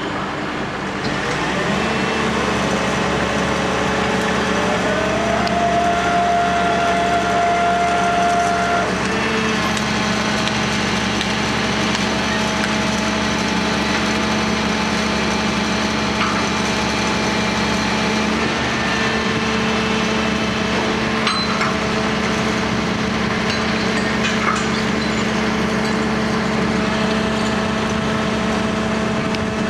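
Heavy diesel construction machinery running steadily with a constant hum. A whine rises in pitch about five seconds in and cuts out around nine seconds in.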